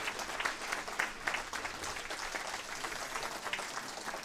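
Crowd applauding, the separate claps distinct.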